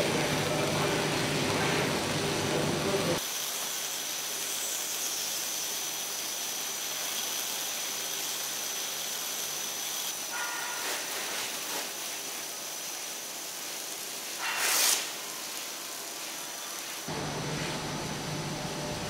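Foam sheet production line machinery running. A steady low hum gives way after about three seconds to a steady hiss with a thin high whine. There is a brief whoosh about fifteen seconds in, and the hum returns near the end.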